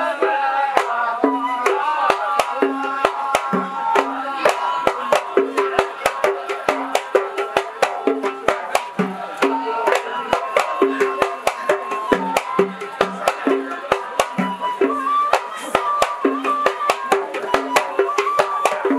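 Men's chorus singing a Hadhrami Sufi qasida in zarbadi style, over hand drums beating a steady rhythm of low strokes and sharp slaps several times a second.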